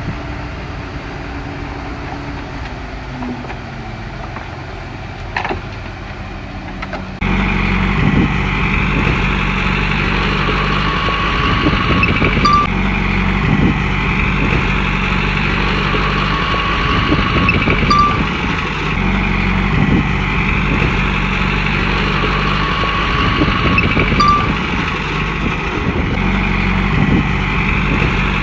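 Heavy diesel engine of a Komatsu bulldozer running under load. It jumps suddenly louder about seven seconds in, and from then on a higher whine swells and fades roughly every six seconds.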